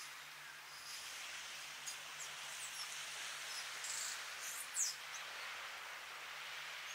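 Gentle sea waves washing onto a sandy beach, a steady soft surf hiss. A few short, high bird chirps come through around the middle, the loudest about five seconds in.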